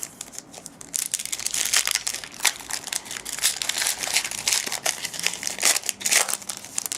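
Crinkling and tearing of a trading card pack's foil wrapper as it is ripped open and crumpled by hand, in dense irregular rustles from about a second in until near the end.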